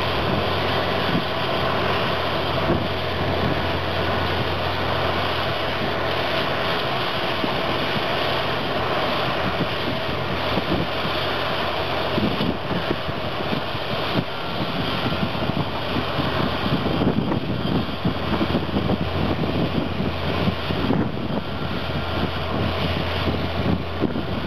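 Caterpillar D11N bulldozer repowered with a C27 ACERT V12 diesel, running under load as it pushes dirt, a steady low engine drone that turns rougher and more uneven about halfway through.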